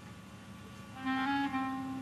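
Background music: a slow melody of long held notes, softer for about the first second, then a louder sustained note.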